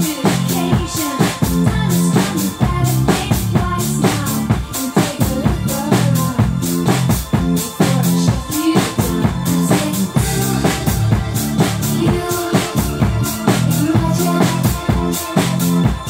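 Acoustic drum kit played live to a recorded electronic dance track: a steady driving beat of kick, snare and cymbal strokes over the track's synths and bass.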